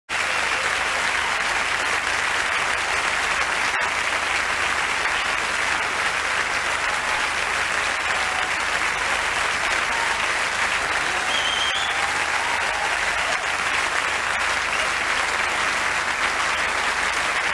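Large theatre audience applauding, a dense, steady clapping that holds at an even level.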